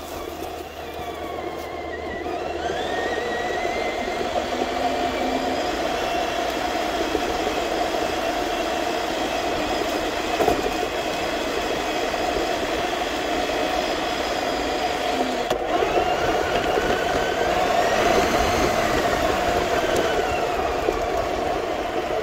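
Traxxas TRX-6 six-wheel RC crawler driving, heard from on board: a steady whine from its electric motor and geared drivetrain. The whine rises in pitch as the truck speeds up a couple of seconds in and again near the end, then falls away. Under it are the tyres rolling over dirt and then gravel.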